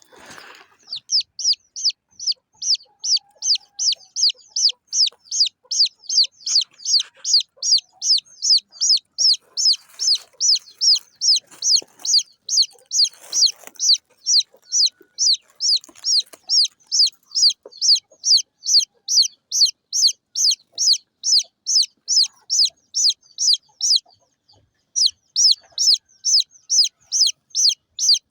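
Baby chick peeping in a steady, rapid series of short, high, falling chirps, about two or three a second, with a brief pause near the end.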